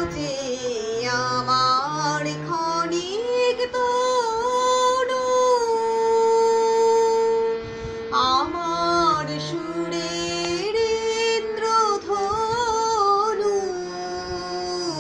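A woman singing a Bengali song to her own harmonium accompaniment, her voice sliding between notes over the harmonium's steady held tones, with one long held note about six seconds in.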